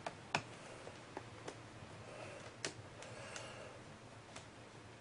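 A handful of faint, sharp clicks at uneven intervals, from a small screwdriver working the screws out of a laptop's hard-drive bay.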